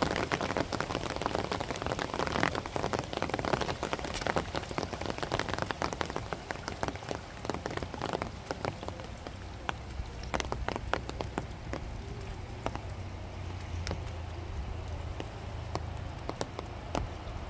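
Rain falling: a dense patter of drops that thins to scattered separate drops about halfway through.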